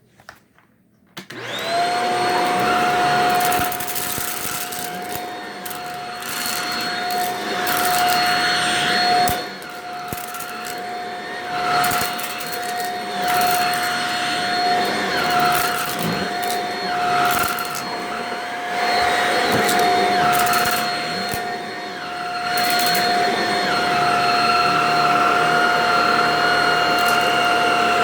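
Vacuum cleaner switching on about a second in, then running with a steady high whine while its note and level swell and dip as it is worked over a test box of dry macaroni noodles and rice, with scattered sharp clicks and rattles of debris being sucked up.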